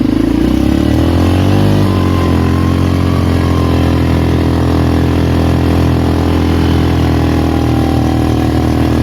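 Polaris Magnum 425 ATV's single-cylinder four-stroke engine pulling under load, its pitch rising and falling about a second in, then running steadily.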